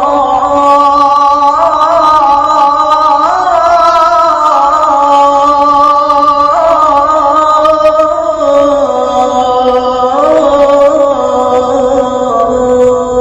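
A male muezzin chanting the adhan, holding one long melismatic note on the end of 'Ashhadu anna Muhammadan rasulullah' and ornamenting it with slow rises and falls in pitch, unbroken throughout.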